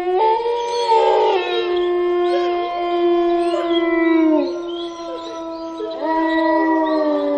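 Wolf howling as an eerie sound effect: one long, steady howl held for about four seconds that drops in pitch as it ends, with fainter wavering howls overlapping it. A second long howl starts near the end.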